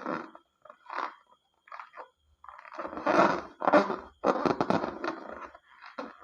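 Slime being squished and mixed by hand, giving irregular crackly, squelching bursts, the loudest about halfway through.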